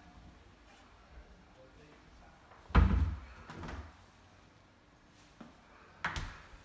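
Fridge door being opened and shut: a heavy thud about three seconds in with a softer knock after it, then a sharp clunk just after six seconds as the door closes.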